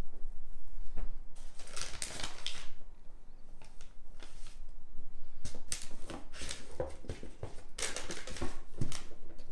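Tissue wrapping paper rustling and crinkling in several bursts as it is folded back inside a gift box, with a few light knocks of the box being handled.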